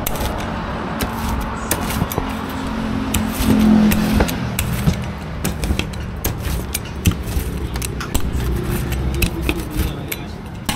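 Metal pizza-wheel cutter slicing roti on a stainless steel counter: many sharp clicks and scrapes as the steel wheel is rolled and pressed against the counter. A vehicle drones past behind it, loudest about four seconds in.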